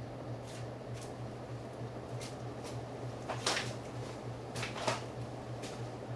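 1981 Hunter Original ceiling fans running with a steady low motor hum that pulses slightly, with scattered light ticks. There are two sharper clicks, about three and a half and five seconds in.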